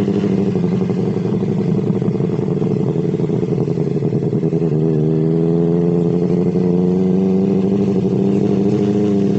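Motorcycle engine running at a steady cruise while riding, its note shifting slightly in pitch about halfway through.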